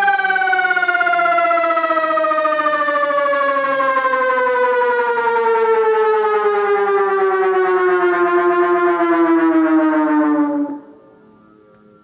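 SiRcom ESp MAESTRO electronic siren winding down: its tone falls steadily in pitch for about ten seconds, then cuts off near the end.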